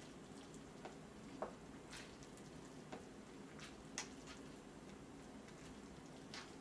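About half a dozen faint, irregular taps and clicks of chopsticks against a paper instant-noodle cup as the noodles are stirred.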